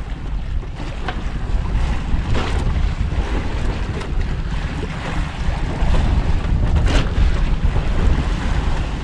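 Wind rumbling on the microphone over the wash and splash of sea waves around a small boat.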